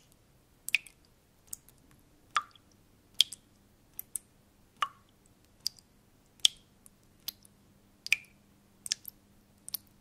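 Water drops dripping one at a time at an uneven pace, roughly one to two a second. Each is a short, sharp plink, some with a brief ringing pitch.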